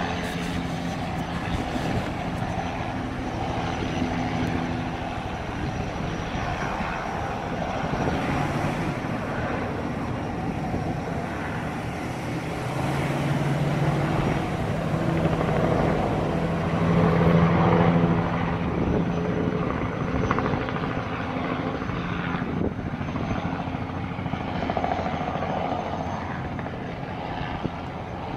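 A light helicopter flying overhead, its rotor and engine running steadily, growing louder to a peak a little past halfway and then fading.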